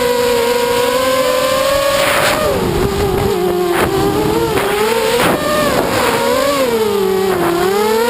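FPV quadcopter's brushless motors (RCX 2205 2350kv on a 4S pack) whining. The pitch drops about two and a half seconds in, wavers, dips again near the end and rises back as the throttle changes, with a few short surges of noise.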